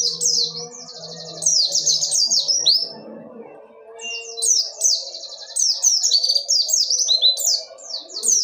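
A pleci (white-eye) singing a fast, continuous song of sharp, high, falling chirps mixed with buzzy trills. The song pauses briefly about three seconds in, then resumes in a dense run.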